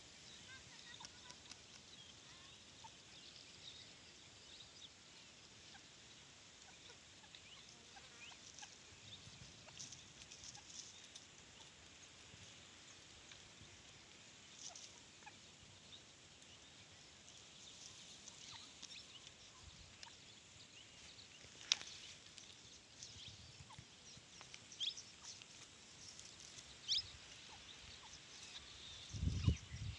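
Faint field ambience with scattered short, high bird chirps and ticks. There is one sharp click a little past the middle, and a couple of low bumps near the end.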